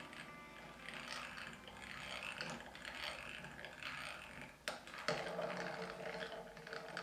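Hand-cranked geared drill turning with a gear-driven whirring and clicking as its bit bores a small pilot hole into a roasted maple guitar headstock. A sharp click comes a little before five seconds in.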